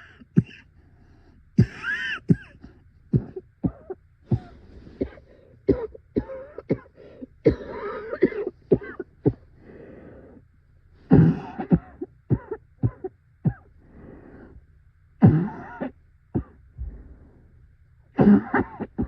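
A person in a violent coughing fit: rapid runs of sharp, hacking coughs in clusters, broken by several longer, strained voiced sounds between the bursts.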